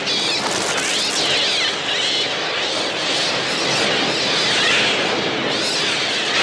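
A dense, continuous din of many shrieking seagull cries, overlapping rising and falling screeches over a steady whirring roar of a massed flock attacking. These are the film's electronically produced bird sounds, made on a Mixtur-Trautonium.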